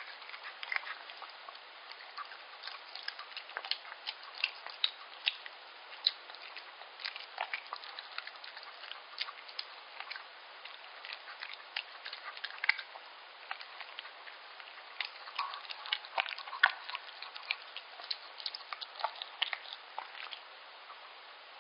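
Yorkshire terrier eating soft liver pâté dog food: irregular wet chewing and lip-smacking clicks, several a second.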